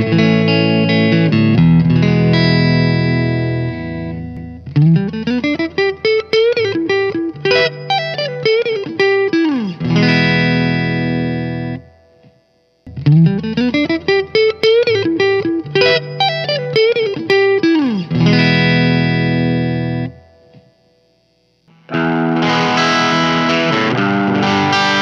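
Clean electric guitar phrase from a Squier Classic Vibe Jazzmaster through a Mesa Boogie Fillmore 25's clean channel and Eminence Legend speaker, played back from a looper and recorded first on a Behringer SL75C mic, then after a short gap halfway through, the identical phrase recorded on a Shure SM57. Near the end, after another short gap, a distorted electric guitar comes in, a Reverend Contender 290 with P-90 pickups on the Fillmore's drive channel.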